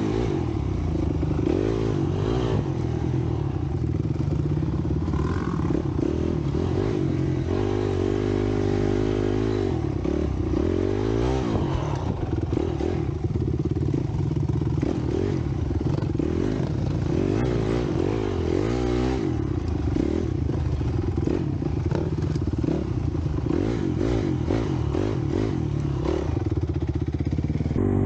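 Honda CRF250X four-stroke single-cylinder dirt bike engine under way, its revs rising and falling over and over as the throttle is worked, with the bike rattling over rough ground.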